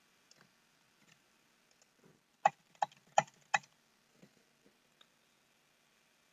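Four quick, evenly spaced clicks of computer keyboard keys, about three a second, with a few fainter taps around them, as the copied lines are pasted in over and over.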